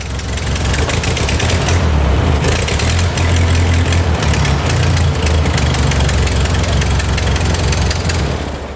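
Ford tractor gasoline engine running steadily on its freshly rebuilt Marvel Schebler carburetor, with a strong low rumble. It fades in at the start and fades out at the end.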